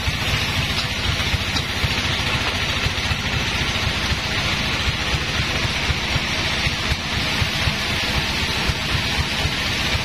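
Sawmill bandsaw machinery running steadily, not cutting: a continuous hiss over a fast, even low throb.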